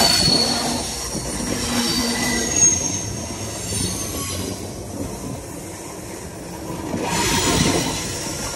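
Freight train rolling directly over a recorder lying between the rails: steel wheels rumbling and clattering on the track, with thin high squeals from the wheels. It swells louder again near the end.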